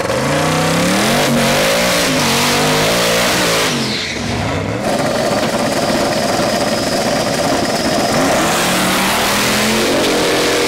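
Twin-turbo LS V8 in a drag-racing Jeep Wrangler revving up and down on the start line. The revs then hold steady with a faint high whistle over them, and near the end the engine climbs hard through the revs as the Jeep launches, with the opposing car's engine mixed in.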